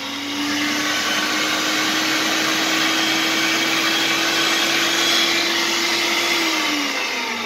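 Moulinex DKA2 electric meat grinder running empty: a steady whirring motor and worm-gear drive with one steady hum, running normally on a freshly replaced 608 motor bearing. Near the end it is switched off and the hum falls as it winds down.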